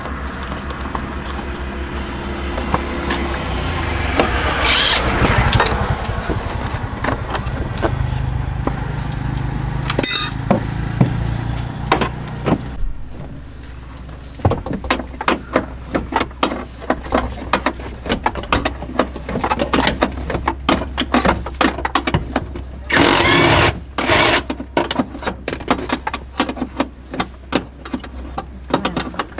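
A steady low mechanical hum for the first half, then a fast, irregular clatter of clicks and knocks with one loud rushing burst near the end.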